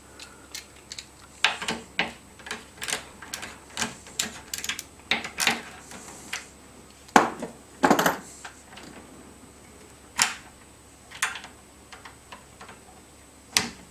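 Irregular sharp clicks and knocks as the clamp of a home-made HDMI cable test rig is loosened and the cable is handled, with a couple of louder knocks about halfway through.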